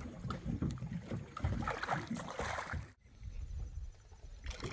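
Irregular knocks and water splashing as a small dorado is released back into the river. The sound cuts off abruptly about three seconds in.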